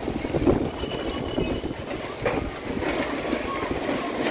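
Gusty nor'wester storm wind rumbling on the microphone, its loudness rising and falling unevenly.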